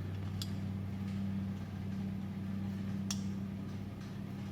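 Steady low hum with two short, sharp metal clicks, one near the start and one about three seconds in, from parts and hand tools being handled during front hub work.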